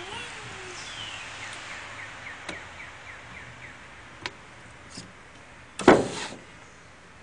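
A toddler's hands on a pickup truck's side window glass: a run of quick, high, falling squeaks, a few light taps, and about six seconds in one loud thump. A brief child's vocal sound comes at the very start.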